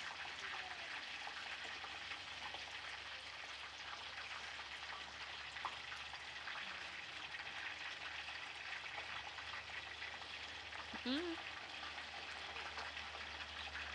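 Oil sizzling steadily in a frying pan, with a brief hum from a person about eleven seconds in.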